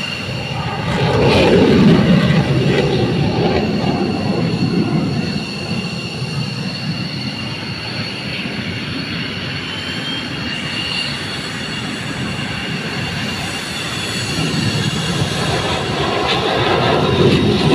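Aircraft engines running on an airfield: a steady loud roar with a high, even turbine whine over it, swelling about a second in and again near the end.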